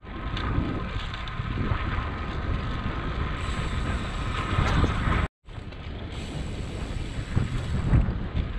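Wind rushing and buffeting over the microphone of a camera on a moving bicycle, with the steady rumble of riding over concrete. The sound cuts out completely for a moment about five seconds in.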